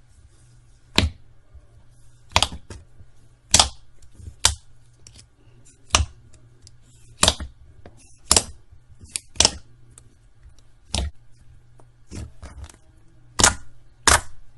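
Slime being pressed and squished by hand, giving about a dozen sharp clicks and pops at uneven intervals over a low steady hum.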